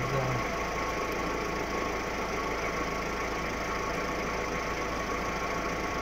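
A steady, even hum of an engine idling, with no change in level throughout.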